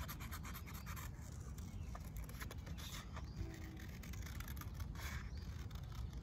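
Scissors snipping through construction paper: a quick run of small cuts in the first second, then occasional single snips.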